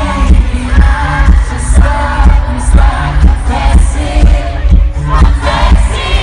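Live pop concert music over an arena PA: a male singer with acoustic guitar, over a heavy pulsing bass.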